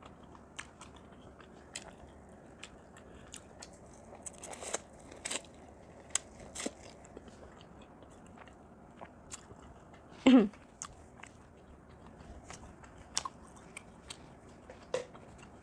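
Close-up eating sounds: scattered crunchy bites, chewing and mouth clicks, with a short hummed "mm" about ten seconds in.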